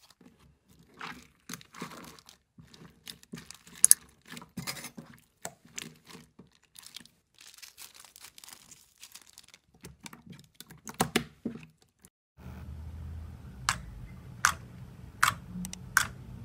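Slime being squeezed out of a plastic bag and kneaded by hand: wet squelching with bag crinkling and many small crackles and pops. About twelve seconds in, a low steady background hum comes in and fingers pressing into clear slime in a tray make sharp pops a little under a second apart.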